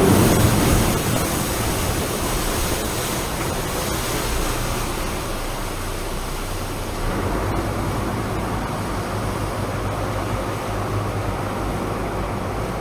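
Steady rushing noise of a jet boat running through river rapids, water and wind together with no clear engine tone. It is loudest in the first second, then eases to an even level.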